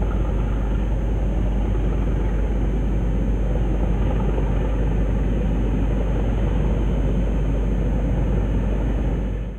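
Class 37 diesel locomotives' English Electric engines giving a steady, deep rumble as the train pulls away, fading out at the very end.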